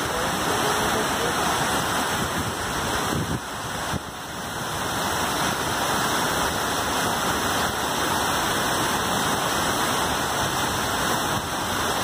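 Steady rushing of a tall waterfall pouring into its plunge pool.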